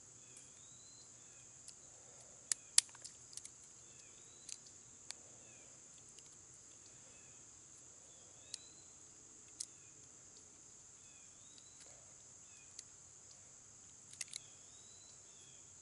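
Scattered sharp clicks and snaps of roasted hickory nutshell being broken and picked apart by hand, the loudest about three seconds in and a small cluster near the end. Behind them a steady high insect drone and faint repeated bird chirps.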